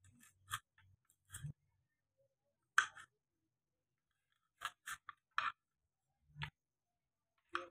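Kitchen knife cutting green chillies lengthwise on a wooden chopping board: about nine short, separate cuts and taps of the blade on the board, irregularly spaced.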